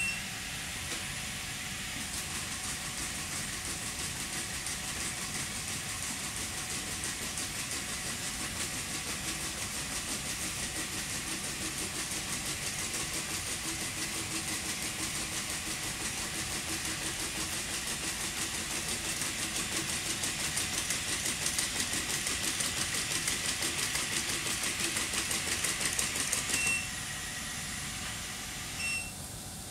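Unitree A1 quadruped robot trotting: a steady whir of its leg motors with a quick, even patter of steps, growing louder as it comes closer, then dropping off sharply near the end.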